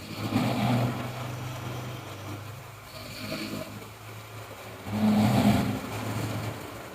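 A person snoring heavily: two loud, rasping snores about five seconds apart, each trailing into a low steady drone, with a softer breath sound between them.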